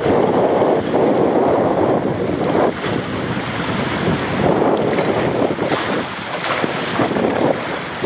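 Water rushing and splashing in an open fibreglass body-slide flume as a rider slides feet-first down it at speed, with wind buffeting the microphone.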